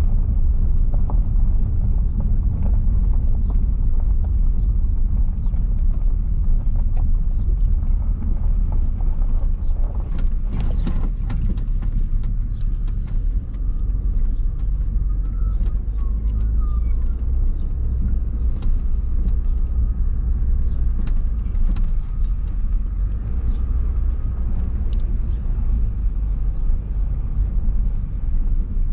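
Car driving slowly on a gravel track, heard from inside the cabin: a steady low rumble of engine and tyres, with small stones ticking and popping under the tyres.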